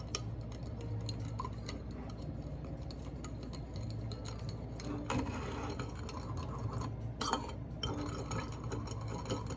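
Scattered light clinks and taps of glassware and dishes being handled, with a few firmer knocks in the second half over a steady low hum.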